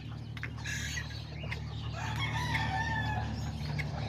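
Small bantam chickens clucking, with a rooster crowing, one drawn-out call from about two seconds in.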